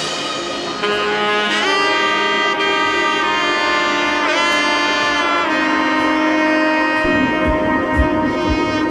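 Background music: long held melodic notes that slide in pitch now and then, with a low steady beat coming in about seven seconds in.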